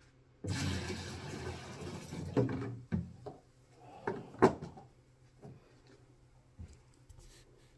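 Water poured from a plastic bucket into a carpet shampoo machine's tank, a steady splashing that lasts about two seconds, then several knocks and clunks of the plastic bucket being handled and set down.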